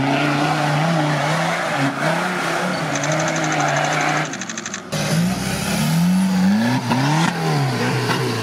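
Modified off-road trial vehicle's engine revving hard, its pitch swinging up and down as its mud tyres spin and throw soil on a steep climb. There is a short drop about halfway through, then the engine revs up and down again.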